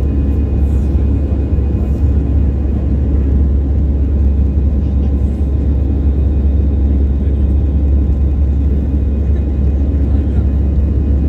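Steady cabin noise of a twin-engine jet airliner climbing after takeoff, heard from a window seat over the wing: a loud, even, deep engine rumble with a faint steady high whine above it.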